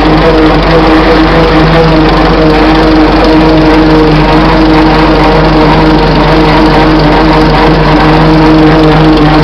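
1926 Fordson Model F tractor under way, its four-cylinder engine running steadily with a steady whine from the worm-gear rear end.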